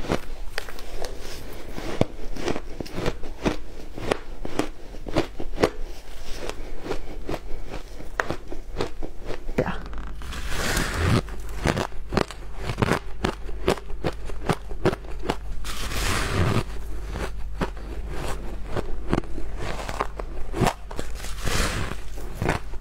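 Close-up crunching and chewing of shaved ice, then of a frozen block of coloured ice: rapid crisp crunches, many a second. About ten seconds in, a low steady hum comes in underneath, and a few longer, harsher crunches stand out.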